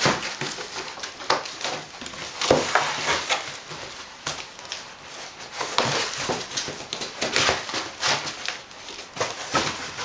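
Large foil-lined cardboard panels of a CooKit-style solar cooker being turned and refolded by hand: irregular scraping, rustling and flapping of cardboard as its tabs are changed over.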